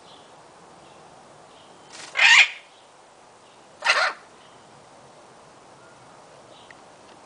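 Illiger's macaw giving two loud screeches, one about two seconds in and a shorter one about four seconds in.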